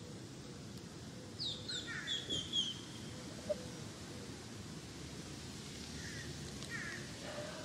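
Small birds chirping: a quick run of five or six short, falling chirps about a second and a half in, and a few more near the end, over faint steady outdoor background noise.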